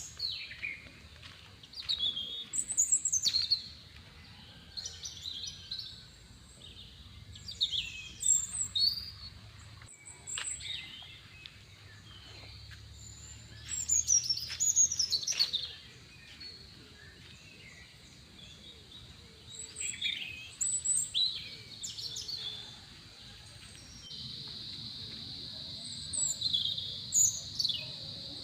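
Birds chirping in clusters of quick, sweeping calls every few seconds. About three-quarters of the way through, a steady high cricket trill comes in and holds under them.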